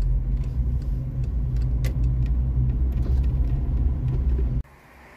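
Car cabin noise while driving on a paved road: a steady low rumble of engine and road noise with a few faint ticks. It cuts off suddenly near the end.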